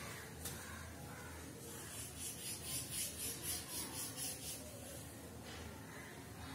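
Chalk scratching on a blackboard in quick, even strokes, about four a second, for around three seconds starting about two seconds in, as small looping curls are drawn.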